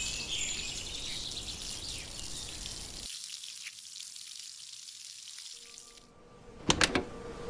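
Steady high hiss of background noise, then a quick cluster of three or four loud knocks near the end. A low steady musical tone sets in under them.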